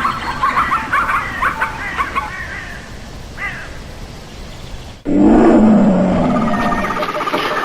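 Recorded animal sound effects: a run of short, higher-pitched animal calls that fade out, then, after a sudden cut about five seconds in, a different, louder and lower animal call.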